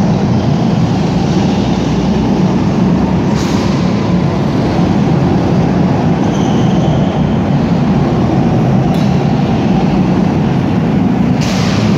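Go-kart engines running steadily as several karts lap an indoor track, a loud continuous drone in a large hall.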